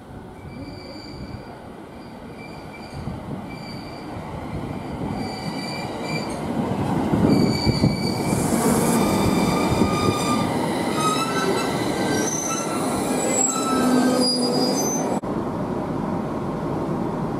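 IGR Iwate Galaxy Railway electric train pulling in alongside the platform, its wheels and brakes giving a high metallic squeal of several pitches over a rumble that grows louder as it comes past. About 15 seconds in the sound changes abruptly to the steady running noise of a moving train.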